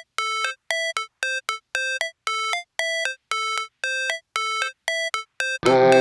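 Electronic background music: a melody of short beeping synth notes, about two a second, with a full track and bass coming in near the end.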